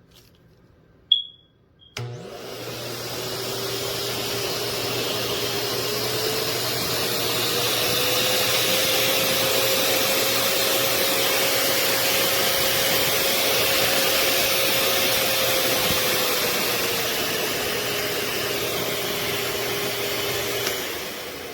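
A short electronic beep, then a high-velocity pet dryer's blower motor starts and runs with a steady rush of air. Its pitch rises as the speed is turned up, holds, then drops back before it shuts off near the end.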